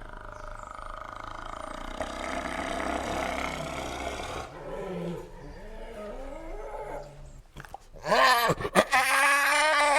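Animal vocal sound effects: a long, rough roar, then lower growls, then loud pitched calls that bend up and down in pitch from about eight seconds in.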